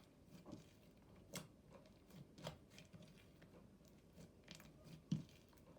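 Faint, scattered squishes and small clicks of a thick, glossy slime being stretched and pressed by hand.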